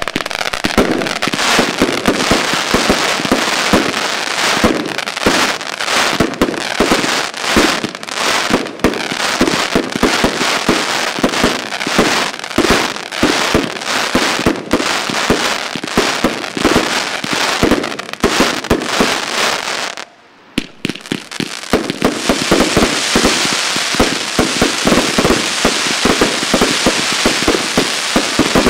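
Firestar Rampage XL 136-shot fireworks cake firing in rapid succession: a dense run of launch thumps and bursts with crackling stars. It drops off briefly about twenty seconds in, then resumes with thicker crackle.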